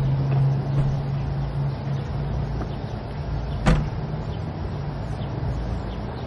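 Car engine idling with a steady low hum, and a car door shutting with one sharp thud a little past halfway.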